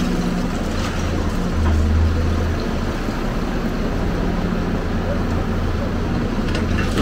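Hyundai 290LC-9 crawler excavator's diesel engine running under load with a steady low drone as it lifts and swings a bucket of demolition rubble. The drone swells briefly about two seconds in, with a few faint knocks of debris.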